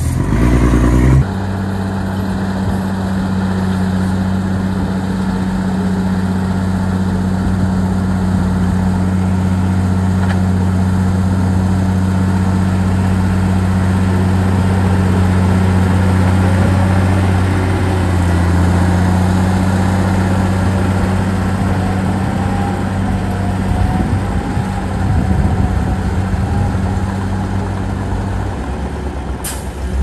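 Heavy diesel earthmoving-machine engine running steadily at constant speed, with a deep, even hum.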